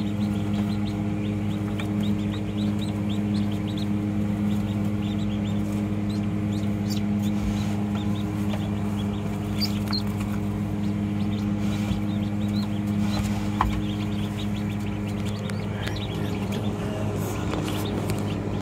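Newly hatched ducklings peeping in quick, repeated short calls over a steady low electrical hum, with a single knock partway through.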